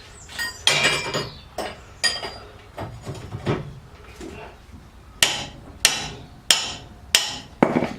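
Hammer blows on rusted steel suspension parts of a Mazda MX-5, knocking a seized part loose. A few scattered metal knocks and clanks come first, then five sharp strikes about two-thirds of a second apart in the second half.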